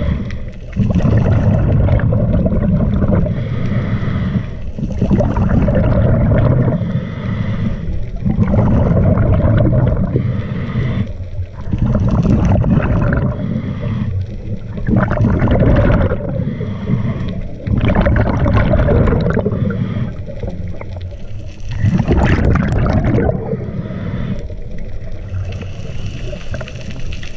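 Scuba diver breathing through a regulator underwater, with the exhaled bubbles gurgling in a cycle that repeats every few seconds.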